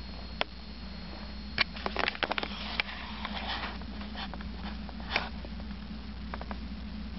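Scattered sharp taps and clicks close to the microphone, with a quick run of them about two seconds in and another single click about five seconds in, over a steady low hum.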